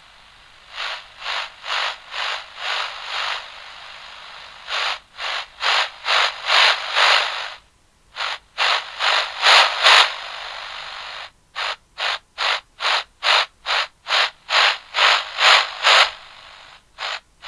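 Radio static sound effect: a hiss that pulses on and off in quick bursts, about two to three a second, in several runs. Between runs the hiss holds steady, with a brief break near the middle.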